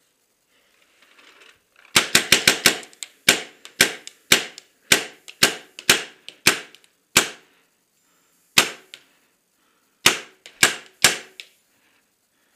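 Paintball marker firing up close: a quick string of about five shots, then single shots about every half second, a lone shot after a pause, and a last burst of three or four near the end.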